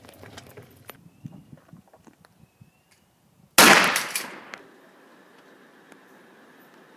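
A sudden loud bang about three and a half seconds in, fading over about a second, after a few light clicks and knocks.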